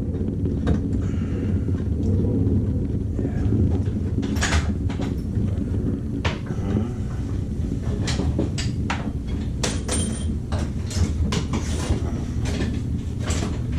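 Hand tools clicking and knocking against a tub and shower valve during a cartridge repair, a few scattered knocks at first and then a quick run of clicks from about eight seconds in, over a steady low hum.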